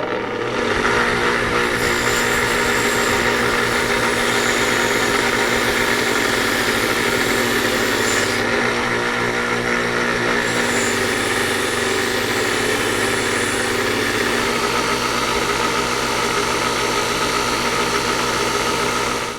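Motor-driven wire wheel running steadily with a rusty auger bit held against it, the wire bristles scrubbing rust off the steel. It stops suddenly right at the end.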